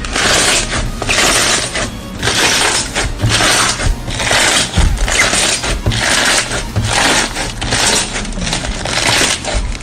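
Slime being squeezed and worked by hand, crackling and popping in repeated squeezes about a second apart.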